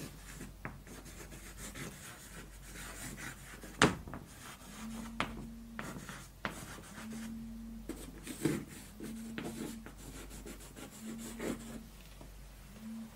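Chalk writing on a blackboard: a run of short scratching strokes and light taps as words are written, with one sharp knock of chalk on the board about four seconds in.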